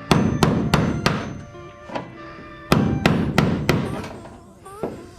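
A hammer striking a chisel to knock the heads off aluminium rivets on a light aircraft's tail. There are two quick runs of three or four sharp metallic blows, about three a second, with a pause between them, and the thin airframe rings after the strikes.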